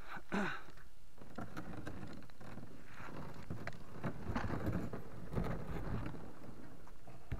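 Irregular crunching and scuffing on a gravelly, shell-strewn bank as a person moves about beside a plastic kayak, with a brief sharp scrape right at the start. Wind buffets the microphone in low gusts midway through.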